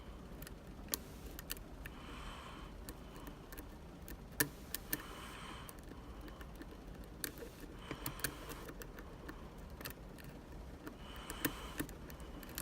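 Small, sharp metallic clicks and ticks, irregularly spaced, from lock picks working the pins of a six-pin Medeco classic lock. Soft breathing through the nose is heard about every three seconds.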